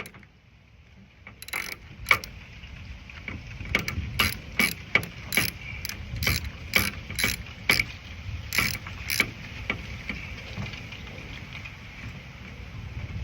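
Run of a dozen or more sharp mechanical clicks, roughly two a second, as the parts of a Nissan 350Z door handle assembly are worked by hand; the clicks thin out and stop about nine seconds in.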